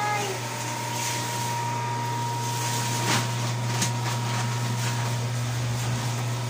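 Steady low machine hum from running equipment, with a faint steady high tone and a few light knocks.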